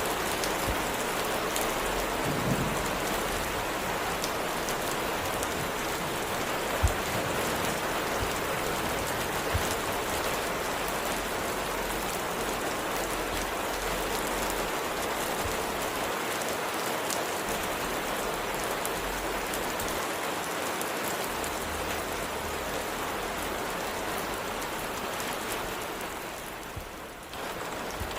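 Steady rain falling, a dense even patter, with a few isolated ticks. The rain briefly fades and swells back near the end.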